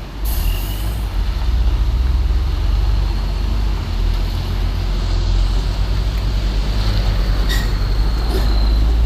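Heavy diesel truck engine rumbling loudly close by as traffic goes past, with a short sharp burst about three-quarters of the way through.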